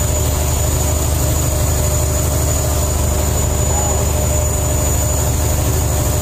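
Fishing boat's engine running steadily, a low even drone with a thin high whine above it.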